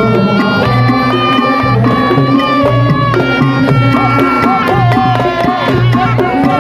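Slompret, a Javanese reed trumpet, playing a wavering melody of long held notes with pitch bends, over a steady hand-drum rhythm.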